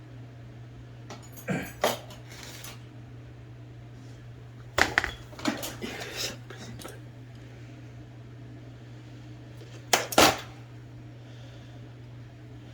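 Small metal parts and hand tools clinking and tapping against each other on a workbench, in three short clusters of sharp clicks; the loudest comes about ten seconds in. A steady low hum runs underneath.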